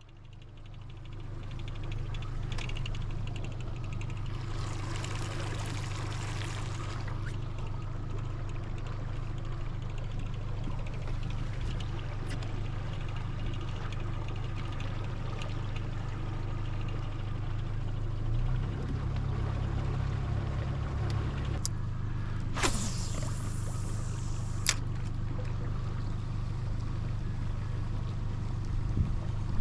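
A boat's motor runs steadily at low speed with a low hum, while water splashes and trickles against the hull. Two brief clicks or knocks come about three quarters of the way through.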